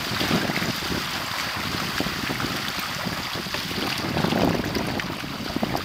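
Water rushing and splashing along the hulls of a Hobie Tandem Island sailing trimaran running downwind through choppy waves, mixed with wind buffeting the microphone. It is a steady hiss with small crackles of spray.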